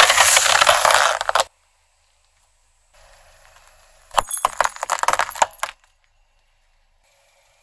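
A plastic bottle of carbonated cola bursts on a bed of nails under a car tyre, giving a loud spraying hiss for about a second and a half. A few seconds later, small corked glass vials of coloured sand are crushed under the tyre, with a quick run of sharp cracks and glassy tinkles lasting about a second and a half.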